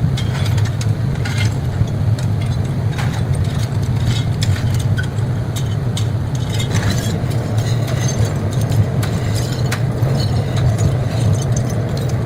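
Loud, steady low machine drone with scattered clicks and crackles over it.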